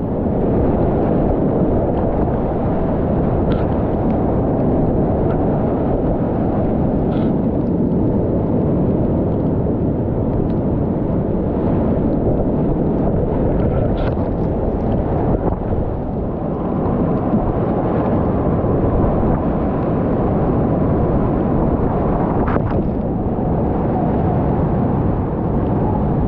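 Whitewater rapids rushing continuously around a kayak at high water, with a few short splashes breaking through the steady noise.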